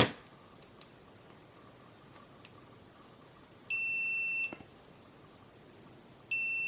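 Fochanc DM003 digital multimeter's continuity buzzer beeping twice, each a steady high tone of under a second, as the test leads make a closed circuit. A sharp click comes right at the start.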